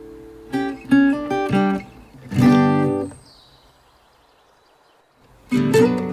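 Background music: acoustic guitar strumming chords, which stops for about two seconds before coming back in near the end.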